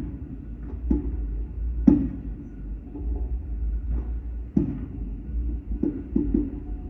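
Fireworks going off, heard as a string of sharp thumps at irregular spacing, some in quick pairs, over a steady low rumble.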